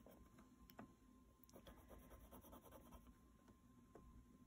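Faint scratching of a colored pencil on a paper coloring card, with a few light ticks as the lead strokes along the outline.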